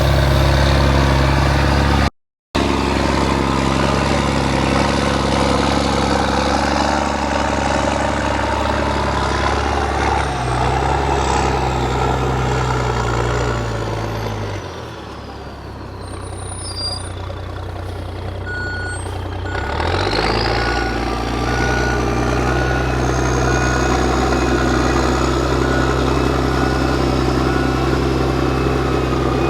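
Heavy diesel engine running steadily, easing off for a few seconds midway and then building back up, with a high whine that falls and rises with it. A row of evenly spaced electronic beeps starts in the second half.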